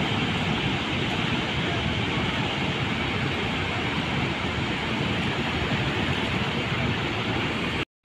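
Steady rushing roar of Chitrakot Falls and the choppy river, with wind rumbling on the microphone. The sound cuts out for an instant near the end.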